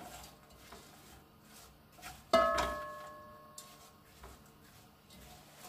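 Light taps and scrapes of stirring chopped vegetables in a cooking pot, with one sharp kitchenware clink about two and a half seconds in that rings on for over a second.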